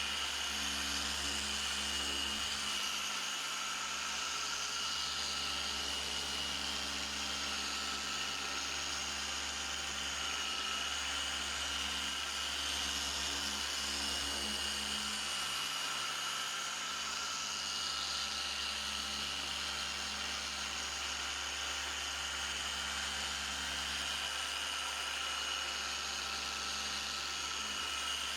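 Handheld electric polishing tool running steadily on a headlight lens, its motor holding a constant high whine.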